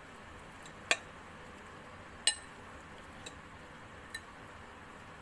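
Metal forks clinking against a ceramic plate while tossing sliced hog plum: two sharp, briefly ringing clinks about one and two seconds in, then two fainter taps.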